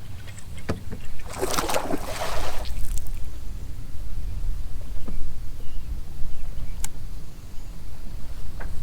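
Fishing boat on the water: a steady low rumble of wind and water, with a burst of rushing, splash-like noise lasting about a second and a half near the start, and a few sharp clicks.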